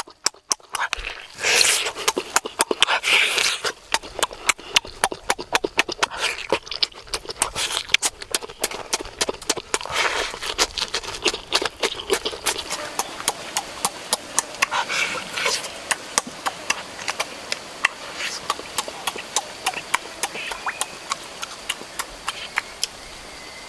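Chewing and lip-smacking close to the microphone while eating roasted duck: a quick run of smacking clicks, several a second, with breathy slurps and sucks.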